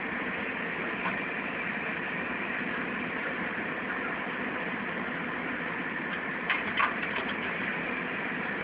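An engine running steadily at idle, with a few sharp knocks about six and a half seconds in.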